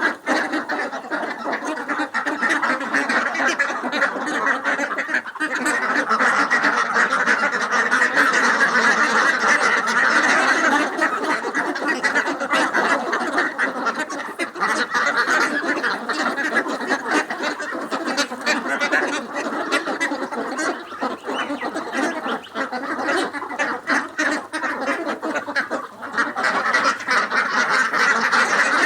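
A flock of farmed ducks quacking without a break, many calls overlapping into one continuous din.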